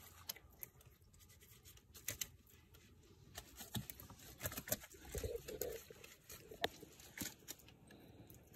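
Faint rustling and scattered small clicks of a nylon trammel net as hands work tilapia free of its mesh, with a few soft thuds.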